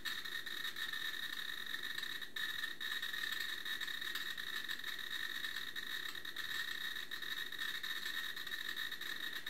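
Geiger counter clicking in a rapid, dense, steady stream as it sits on a radium-dial watch, with the count climbing past 1,600 counts a minute. The dense clicking comes from radium paint on the dial's indices and marks a dial far above background radiation.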